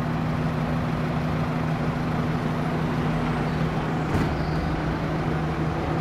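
Lamborghini Gallardo LP560-4's V10 idling steadily, with a brief click a little past four seconds in.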